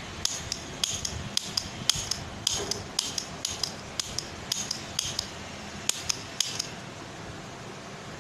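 Toy cap gun revolver's metal mechanism clicking: about twenty sharp clicks, many in quick pairs, which then stop.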